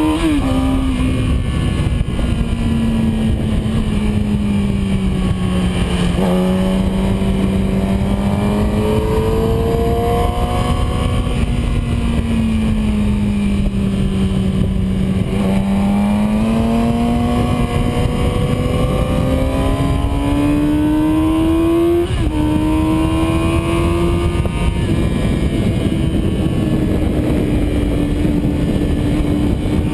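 Yamaha R6 inline-four sport-bike engine at full riding speed. The engine note drops and climbs through the corners, with sudden pitch steps at gear changes near the start, about six seconds in, and again about twenty-two seconds in, over a heavy rush of wind on the microphone.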